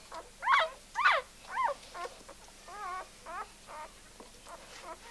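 Newborn puppies crying: a run of short, high-pitched squeals that rise and fall, about two a second, loudest in the first two seconds and fainter after.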